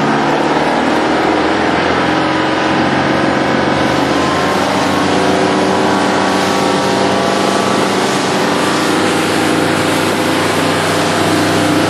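An engine running steadily: a loud, continuous drone with several steady tones that drift slightly in pitch.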